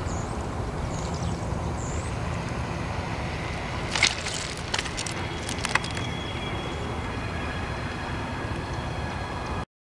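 Steady low outdoor rumble with a few faint high chirps in the first two seconds and several sharp clicks about four to six seconds in. The sound cuts off abruptly just before the end.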